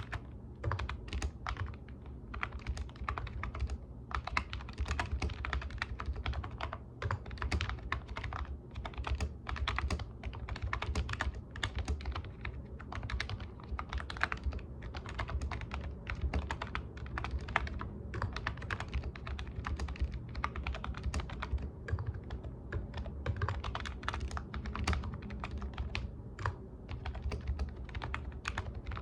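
Computer keyboard typing: rapid, irregular key clicks in bursts with brief pauses, over a steady low hum.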